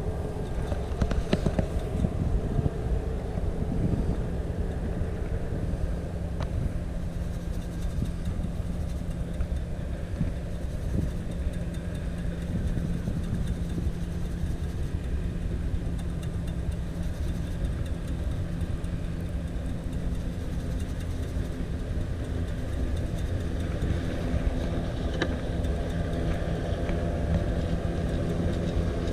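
Steady low rumble of motor traffic with a low engine hum running under it, from the freeway bridge close by.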